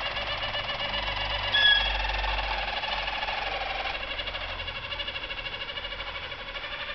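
Harzer Roller canaries singing: continuous soft rolling trills, with a brief clear whistled note about one and a half seconds in.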